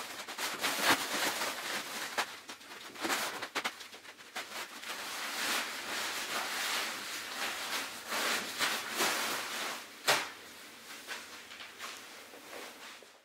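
SOL Escape Bivvy's crinkly fabric rustling and crackling as it is handled and tucked over a sleeping pad, irregular with occasional sharper crackles.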